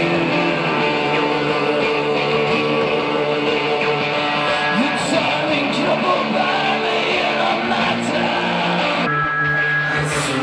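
Live rock band playing at full volume, led by electric guitar, on a camcorder's own microphone.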